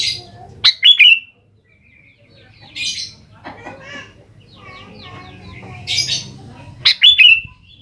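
Sooty-headed bulbul (kutilang) calling actively. Loud, sharp whistled notes fall steeply in pitch, one pair about a second in and another near the end. Harsh, raspy bursts come between them, over softer twittering.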